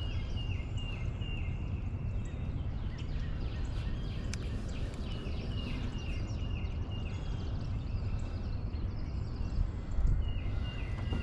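A bird calling in series of short, high, slightly falling notes, about three a second, in several runs, over a steady low rumble.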